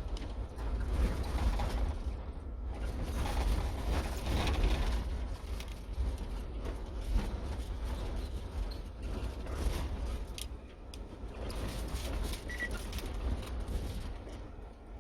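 Outdoor ambience: a fluctuating low rumble like wind on the microphone, with scattered clicks and rustles and birds calling, including one short high chirp near the end.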